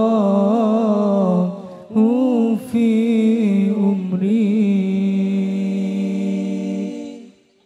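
A solo male voice sings a sholawat unaccompanied, with long held notes decorated by Arabic-style melismatic turns. It breaks for a breath about two seconds in, then sustains another long ornamented phrase that fades away near the end.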